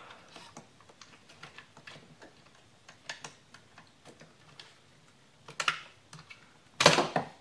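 Small plastic clicks and rattles as the 1996 Buick LeSabre's power window switch assembly and its wiring connectors are worked loose with a screwdriver, with a few louder clicks and a sharp clatter near the end.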